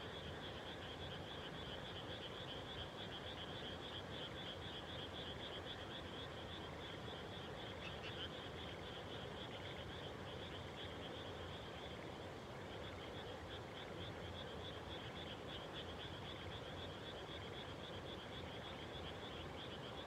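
A dense chorus of many frogs calling from a flooded rice paddy: a steady, high-pitched mass of rapid pulsing calls that thins briefly about twelve seconds in.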